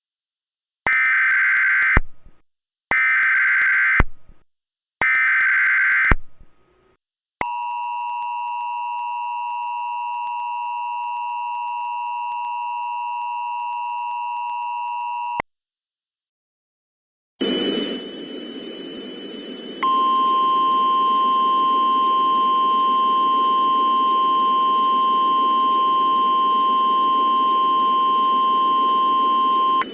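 Emergency Alert System tones: three one-second SAME header data bursts, then the two-tone EAS attention signal held steady for about eight seconds. After a short gap a hiss comes in with a faint high tone, and about two seconds later a loud single steady tone sounds over it, the NOAA Weather Radio 1050 Hz warning alarm tone.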